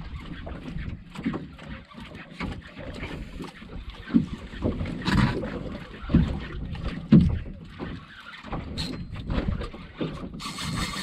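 Water slapping and thudding irregularly against a small boat's hull, with wind on the microphone. Near the end comes a brief fast rattling buzz from the fishing reel.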